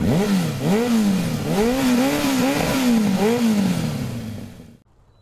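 Moto Morini X-Cape 650's parallel-twin engine revving, its pitch rising and falling several times, then dropping away and fading out about four and a half seconds in.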